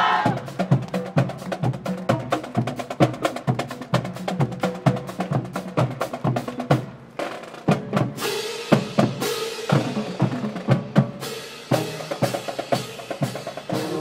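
Marching band drumline playing a percussion feature: rapid snare-drum strokes and rolls over pitched marching bass drums, with bright crashes about eight and nine seconds in.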